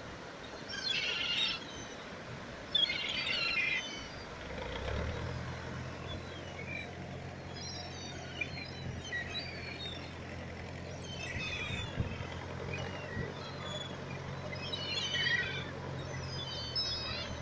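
Gulls calling in repeated bursts of squealing cries over steady surf. From about five seconds in, a low steady engine hum joins them.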